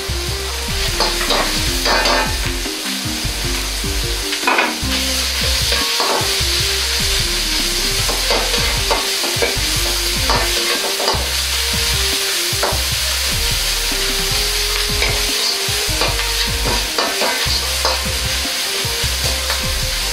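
Minced meat sizzling in a hot wok, steadily stir-fried with a metal wok ladle that scrapes and knocks against the pan again and again.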